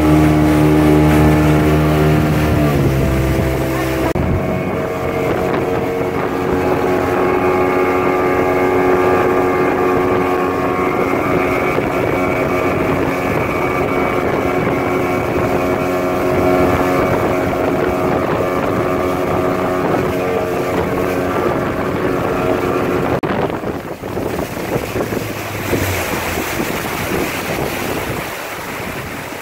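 Small open motorboat's engine running under way, with wake spray hissing and wind on the microphone. A few seconds in the engine note drops to a lower, steady speed; near the end the engine tone fades and the swish of water and wind takes over as the sound tails off.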